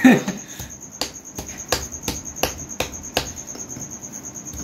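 Kitchen knife hacking at a hard elephant foot yam: about seven sharp knocks, two or three a second, then stopping after about three seconds. Crickets chirp steadily throughout.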